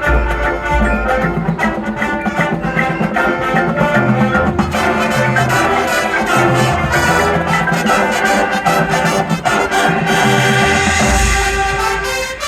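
High school marching band playing: brass sustaining full chords over the drum line's steady hits, with a bright, hissing swell in the treble near the end.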